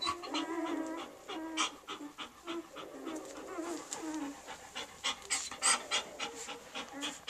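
German Shepherd bitch panting rapidly just after whelping, the breaths loudest about five seconds in. Short, thin whimpering squeaks come and go underneath.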